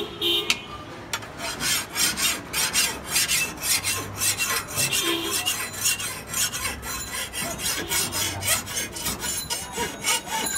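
Hand file scraping back and forth along the steel of a bonti blade in repeated rasping strokes, about two a second, filing the blade clean of rust.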